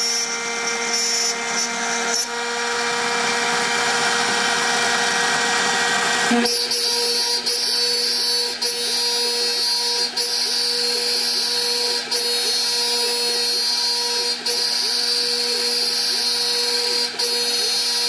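CNC spindle milling aluminium with a 4 mm flat end mill at 1 mm depth per pass, giving a steady whine. A harsher cutting noise over the whine stops sharply about six seconds in. After that the whine carries on, with brief dips every one to three seconds.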